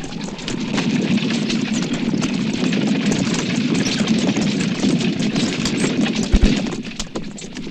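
Horse-drawn stagecoach rolling along, heard from inside the coach: a steady rumble of the wheels with constant rattling and creaking of the coach body, and a heavier jolt about six seconds in.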